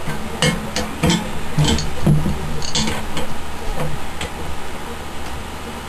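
Irregular metallic clicks and taps of an adjustable wrench working the bolts as BMX handlebars are tightened in the stem, over a steady low hum.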